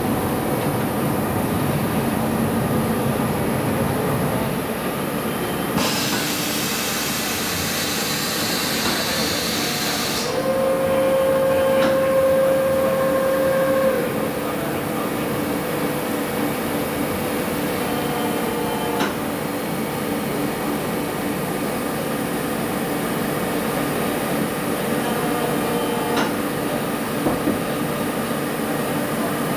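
Large CNC horizontal floor boring machine running with a steady mechanical hum. A few seconds in, a hiss sounds for about four seconds, then a steady whine holds for about four seconds. A couple of faint clicks come later.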